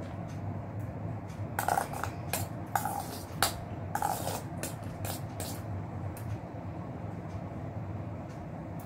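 Metal spoon clinking and scraping against a stainless steel bowl of milk-soaked puffed rice, with a cluster of sharp clinks about two to five seconds in, over a steady low hum.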